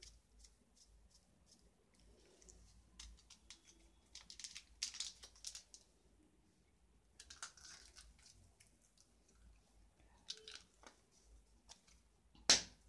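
Faint rustling and crinkling from hands handling small ingredient containers, coming in a few short clusters, with one sharper click near the end.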